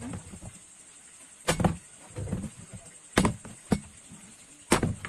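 Small plastic bottle tossed in a bottle flip and landing on the floor: four sharp knocks, two of them about half a second apart.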